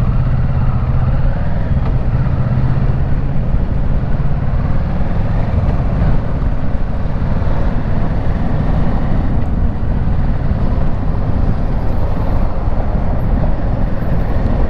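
2018 Kawasaki Versys 650's parallel-twin engine running steadily as the motorcycle rides through city traffic, mixed with wind noise on the bike-mounted microphone.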